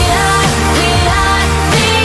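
Pop music: a stretch of the song between sung lines, with sustained bass notes and wavering melodic lines over it.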